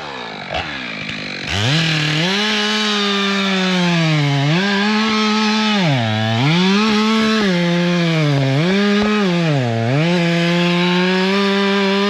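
Two-stroke chainsaw that starts low, then is opened up to full throttle about a second and a half in. Its pitch drops and recovers several times as it works under load.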